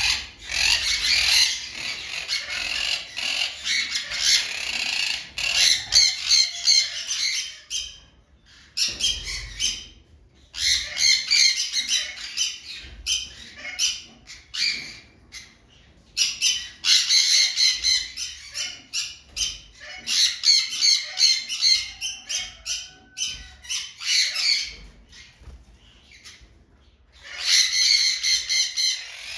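A flock of birds chattering and squawking in dense bouts several seconds long, broken by short pauses.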